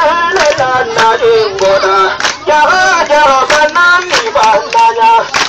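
A loud singing, chanting voice through a megaphone, its pitch bending and holding on long notes, over sharp rhythmic beats about two or three times a second.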